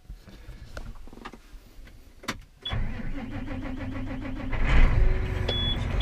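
John Deere tractor's diesel engine starting up in the cab about halfway through, then running with a steady low rumble that swells a second or so later. A few clicks come before it, and short high beeps from the cab sound near the end.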